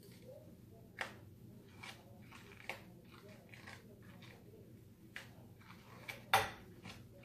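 Dog grooming tools working on a white dog's coat: a faint steady hum with about six sharp clicks or snips spread through, the loudest about six seconds in.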